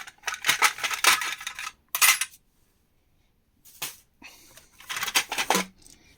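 Small metal hardware such as screws and Jubilee hose clips clinking and rattling as it is handled and sorted, in two bursts of quick clicks with a short pause between.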